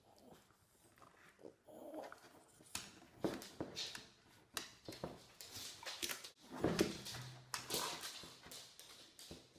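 A dog whimpering and whining in short bursts, the loudest about seven seconds in.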